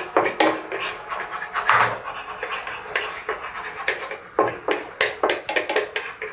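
Wooden spatula scraping and rubbing around an empty nonstick frying pan on an induction cooktop, with a few sharp taps of wood on the pan, as the water left in the pan is worked dry.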